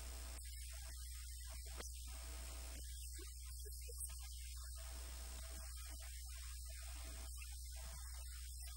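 Steady low electrical mains hum on the audio line, with no voice coming through.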